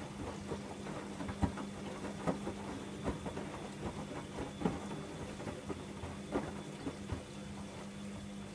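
Bosch Logixx 8 washing machine draining: a steady pump hum under irregular splashes and patter of water and wet towels tumbling in the slowly turning drum.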